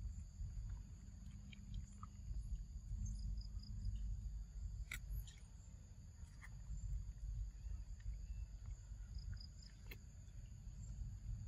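Insects chirring steadily in a high, even drone over a continuous low rumble, with a few sharp clicks about halfway through and again near the end.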